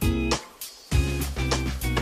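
Background instrumental music: plucked string notes and chords over a low bass line, with a brief lull just before the one-second mark.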